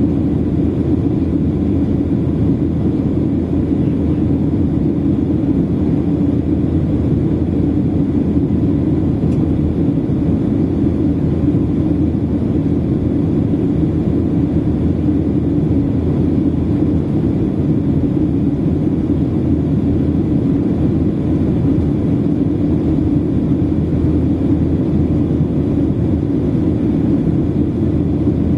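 Steady low rumble inside an airplane cabin during the climb after takeoff: engine and airflow noise.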